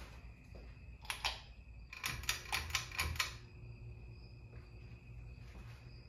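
Ceiling fan light-kit pull chain being pulled: the switch clicks and the chain rattles. There are two clicks about a second in, then a quick run of clicks between about two and three seconds in, and the lights go off.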